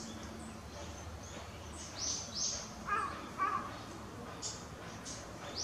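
Wild birds calling in woodland: short, sharp high calls, two loud ones about two seconds in and more near the end, with two lower, rougher calls about three seconds in.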